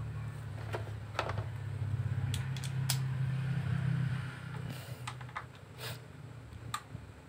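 A low steady hum that swells and then fades out about four and a half seconds in, with scattered sharp clicks and taps of a screwdriver and hands on a car radiator fan motor and its plastic shroud.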